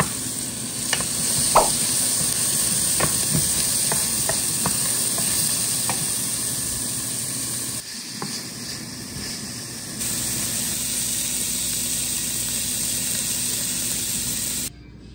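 Diced onion, bell peppers and ground meat sizzling in a skillet while a wooden spoon stirs and scrapes them, with a few sharp clicks against the pan; later, sliced smoked sausage frying. The sizzle cuts off abruptly near the end.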